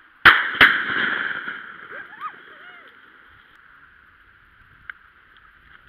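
Two shotgun shots fired in quick succession, about a third of a second apart, at an incoming duck, each followed by a long fading echo.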